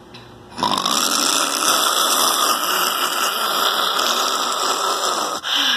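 Loud snoring that starts about half a second in and runs on without a break.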